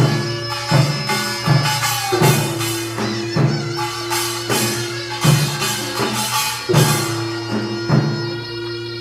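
Korean nongak farmers' band playing: a reedy wind instrument, typically the taepyeongso shawm, holds long notes over steady beats of drums and a small gong.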